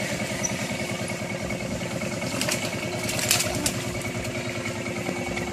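A small engine running steadily at idle, with a couple of brief clatters about two and a half and three and a half seconds in.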